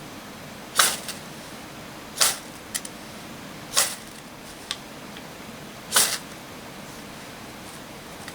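A striker scraped hard down a ferrocerium fire rod four times, each a quick rasping stroke about one and a half to two seconds apart, throwing sparks onto tinder to light it.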